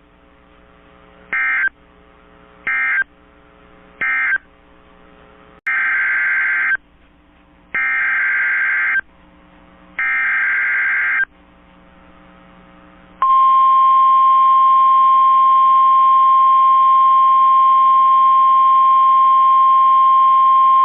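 Emergency Alert System SAME data bursts on NOAA Weather Radio: three short end-of-message bursts, then three longer header bursts announcing the next warning. About 13 seconds in, the steady, loud 1050 Hz weather radio warning alarm tone begins.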